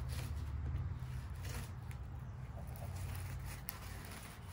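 Fillet knife sliding between the skin and flesh of a largemouth bass fillet and scraping on cardboard, faint and irregular, over a steady low rumble.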